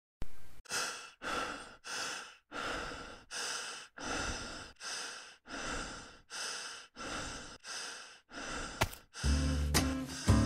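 A person panting hard, out of breath: quick, even breaths, about two a second. Music comes in near the end.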